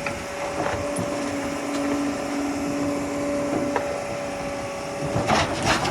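Sany 265 excavator running with a steady whine, with a short clatter near the end.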